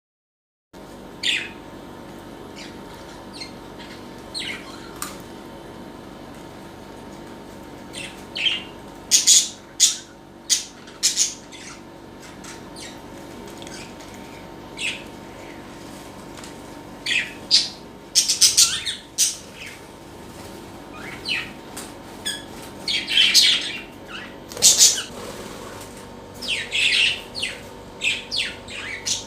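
Pet birds calling in short, sharp chirps and squawks, scattered irregularly and bunched in places, over a faint steady hum.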